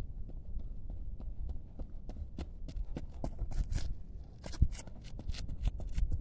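Running footsteps: a quick, irregular patter of shoe strikes on the ground, over a low rumble.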